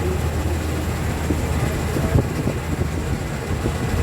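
Rice combine harvester running steadily, a low engine hum under constant rattling and clatter from the machinery.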